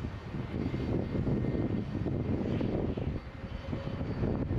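Jet airliner's engines running: a steady low rumble with faint high tones above it, easing slightly a little after the middle.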